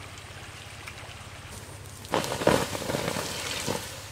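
Water poured from a small pot onto the hot embers of a campfire, hissing and spluttering loudly as it turns to steam. It starts suddenly about halfway through, after the steady rush of a shallow stream.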